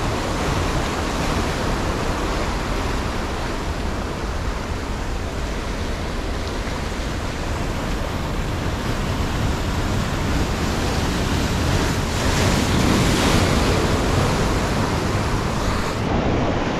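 Ocean surf breaking and washing over shoreline rocks: a continuous rushing of water that swells a little louder about two-thirds of the way through.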